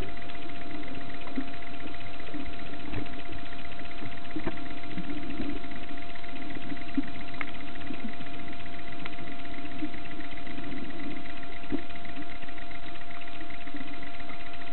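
Steady mechanical hum recorded underwater, with one constant mid-pitched tone over a lower wavering drone and scattered faint clicks.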